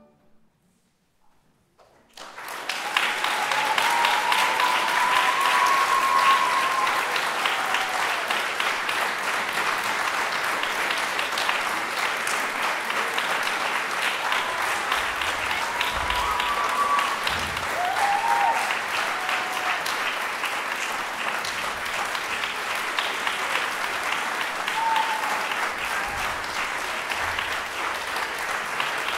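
Audience applauding: after about two seconds of near silence, clapping starts and goes on steadily, with a few brief high calls or whistles over it.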